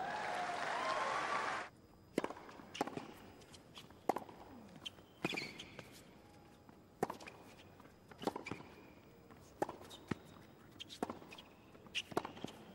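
Crowd applause and cheering that cuts off abruptly about two seconds in. This is followed by a tennis rally on a hard court: sharp pops of racket strings striking the ball and the ball bouncing, with a brief shoe squeak about five seconds in.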